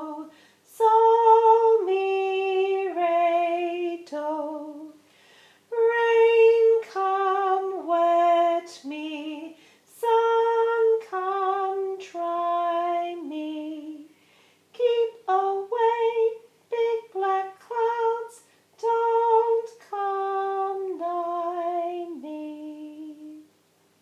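A woman singing a simple melody unaccompanied, in short phrases of held notes that mostly step downward, with brief pauses between phrases.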